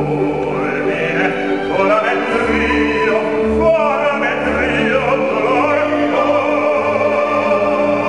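Operatic baritone singing an aria in full voice, with a wide vibrato on held notes, over orchestral accompaniment.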